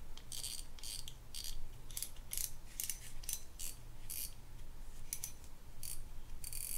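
Lew's Mach Crush 300 spinning reel's spool turned by hand against the drag, the drag clicker giving short bursts of clicking two or three times a second; this is a drag check after a service.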